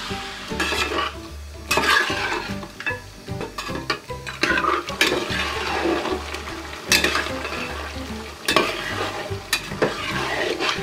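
Long metal spatula stirring pressure-cooked deer meat and its liquid into a fried onion masala in a large metal pot, with repeated scrapes against the pot over a wet sizzle.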